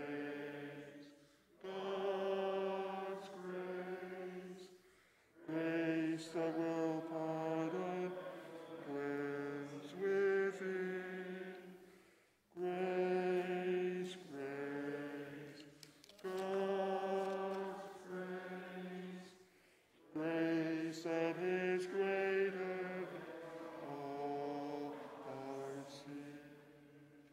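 A man's voice singing a hymn solo in slow phrases of long held notes, with short breaks between phrases; the last note fades out near the end.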